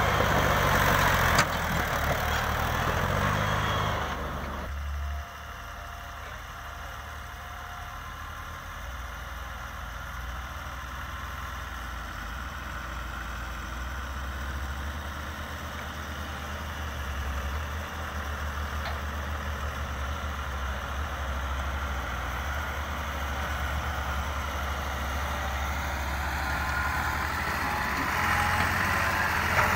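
Diesel farm tractor engine running hard while pulling a trolley loaded with earth, loud for the first few seconds. About five seconds in it drops suddenly to a quieter, steady engine rumble, which grows louder again near the end.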